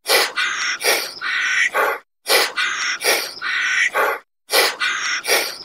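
An animal call track, a group of four or five short calls, looping identically about every two and a quarter seconds with brief gaps between loops.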